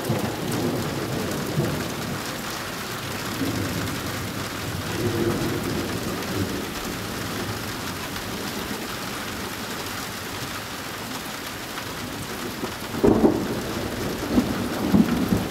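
Steady rain falling with rolling thunder in a summer thunderstorm; a sudden, louder rumble of thunder breaks in near the end.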